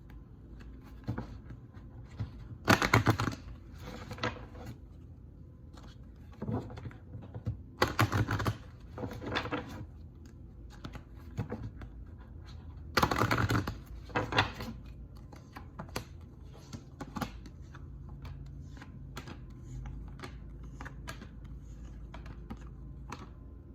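Tarot cards being handled: three short bursts of dense riffling clicks, with scattered light taps and flicks of cards between them.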